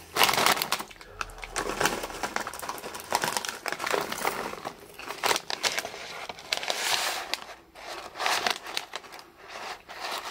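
Plastic popcorn bag crinkling as a hand rummages in it for popcorn, with chewing of the popcorn in between.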